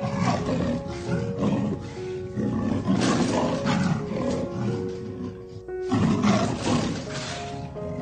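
A big cat roaring several times, with a fresh roar starting sharply about six seconds in, over background music of held notes.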